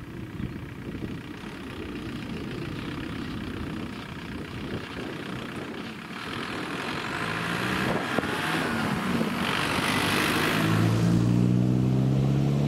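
A Volkswagen Golf drives over the level crossing and past, with tyre noise that grows louder as it approaches. Near the end its engine note rises as it pulls away.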